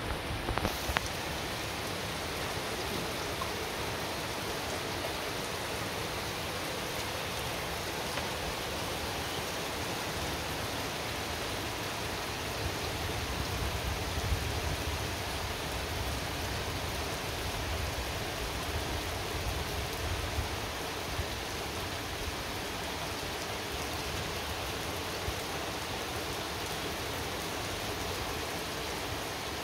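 Steady rain falling hard during a thunderstorm, an even hiss of rain on roofs and pavement, with a brief knock near the start.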